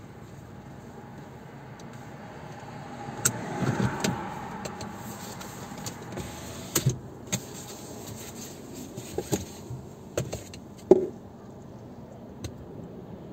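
Urban street traffic: cars going by on the road, with one vehicle passing loudest about four seconds in. Scattered short knocks and clicks come through over the next several seconds.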